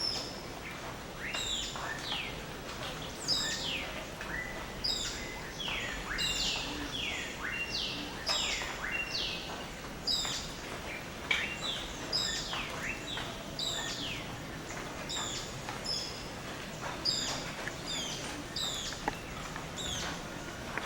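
Dawn chorus of rainforest birds: many overlapping calls, mostly quick high notes that fall in pitch, repeating all through, over a steady background hiss.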